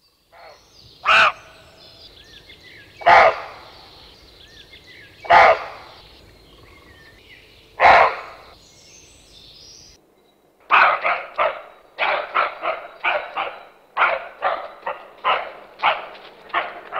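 A dog barking: four single barks about two seconds apart, then from about halfway a quicker run of barks, two to three a second. Birds chirp faintly between the first barks.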